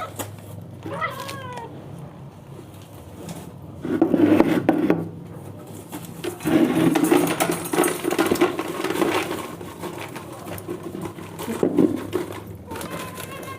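Domestic cats meowing: a short meow about a second in and a long, steady meow near the end. Between them come louder bursts of noise.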